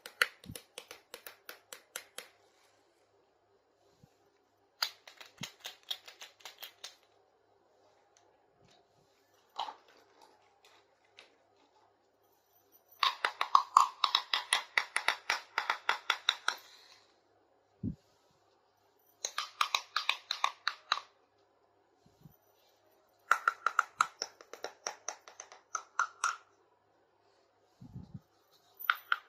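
Bursts of rapid plastic clicking and crinkling from small toy packaging being handled and opened, each lasting a few seconds with short pauses between, the loudest about halfway through. A couple of soft knocks fall in the pauses.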